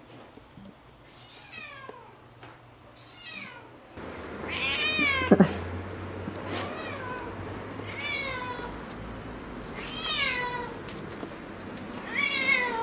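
A ginger cat meowing over and over, about seven meows spaced one to two seconds apart, each one falling in pitch; the first two are fainter.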